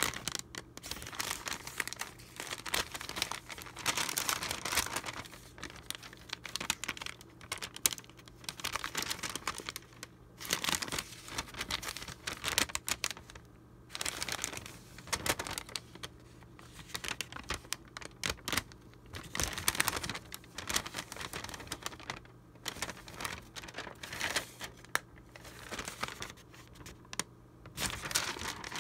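Vintage paper documents rustling and crinkling as they are handled, unfolded and turned. The sound comes in irregular bursts with short pauses between them.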